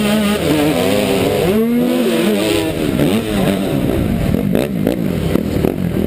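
A Yamaha YZ125 two-stroke motocross bike's engine is ridden hard, its pitch climbing and dropping over and over with the throttle and gear changes. A second bike's engine runs close by. A few knocks and clatters from the bike over the rough track come near the end.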